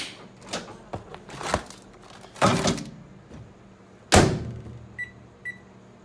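A run of short knocks and clatters, the loudest a sharp thunk about four seconds in, followed by two short high electronic beeps about half a second apart.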